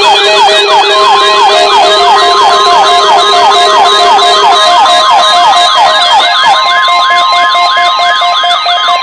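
Several weather alert radio receivers sounding their siren-like alarms: overlapping tones that sweep quickly down, a few times a second. About a second in, the steady NOAA Weather Radio 1050 Hz warning alarm tone joins them. This is the tone broadcast during a weekly test that sets the receivers off.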